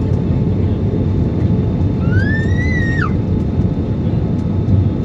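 Steady, loud rumble of an airliner during its landing. About two seconds in, a brief high tone rises slowly and then drops off sharply.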